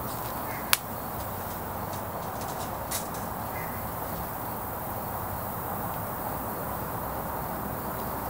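Steady outdoor background noise, with one sharp click about a second in and a weaker click about three seconds in.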